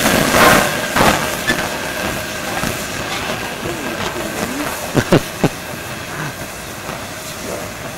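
Three-cylinder Peppercorn A1 Pacific steam locomotive 60613 Tornado moving slowly, with steam hissing from around its cylinders; the hiss is loudest at first and dies away as it draws off. Three sharp knocks come in quick succession a little past halfway.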